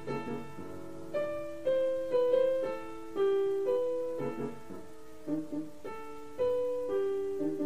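Background piano music: a slow melody of single held notes over soft, repeated lower notes.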